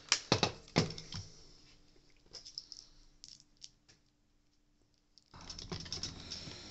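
Hard plastic clicks and knocks as the clear side cover of a Dyson soft roller cleaner head is pressed back into place and its screws are driven in with a small screwdriver. There are a few sharp clicks in the first second, then fainter scattered ticks. Near the end a steady background noise comes in suddenly, with more clicking.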